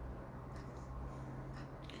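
Faint small clicks and taps over a low steady hum.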